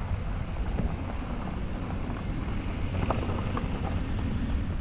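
Wind buffeting the camera microphone: a steady low rumble with a faint airy hiss over it and a few faint ticks.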